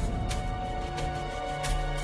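Documentary background music: held chords with three light, evenly spaced hits.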